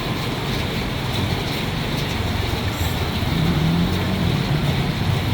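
A motor vehicle engine running close by, its hum getting louder about three and a half seconds in, over a steady rushing hiss.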